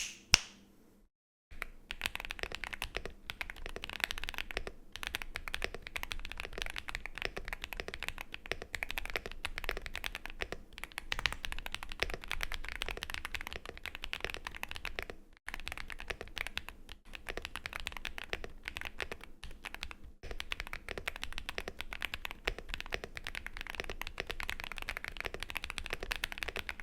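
Rapid continuous typing on a mechanical keyboard with Akko Cream Black Pro V3 linear switches: a dense stream of keystrokes broken by brief pauses about five, fifteen and twenty seconds in. A single sharp click comes just before the typing begins.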